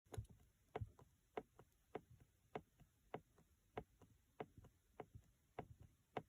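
Rhythmic clicking from the rear passenger-side C-pillar and upper rail trim inside a 2018 Tesla Model 3, about one and a half sharp clicks a second with fainter ticks between: the trim noise the owner later traces to a loose wire and trim contact.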